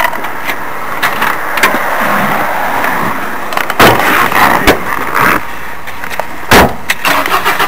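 Rustling, clicks and a few heavy thumps of someone climbing into the driver's seat of a Fiat 124 Spider with a camera in hand, before the engine is started. The loudest thumps come about four seconds in and about six and a half seconds in.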